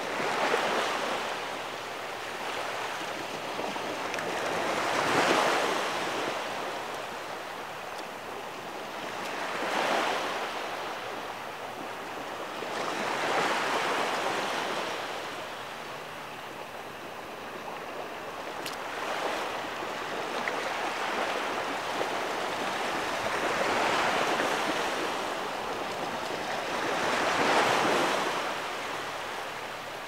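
Ocean waves washing in on a sandy beach, the surf swelling and falling in slow surges about every four to five seconds as the tide comes in.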